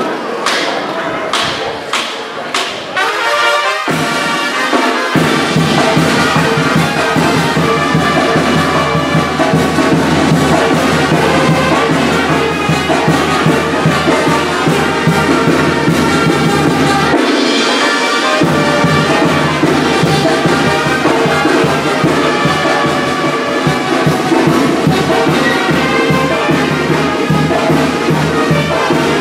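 Brass band music, trumpets and trombones over a low bass line that comes in about five seconds in, after a few sharp knocks at the start.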